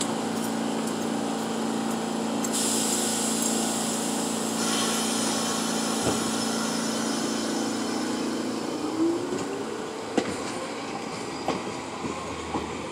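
New York City subway A train of R46 cars pulling out of the station. A steady hum is joined by a hiss about two and a half seconds in, then the motors whine, rising in pitch as the train gets under way, and near the end the wheels click over the rail joints as it leaves.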